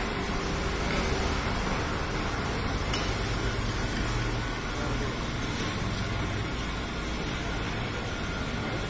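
Stone oil press (kal chekku) running, its pestle turning in the stone mortar and crushing groundnuts for oil, with a steady low hum.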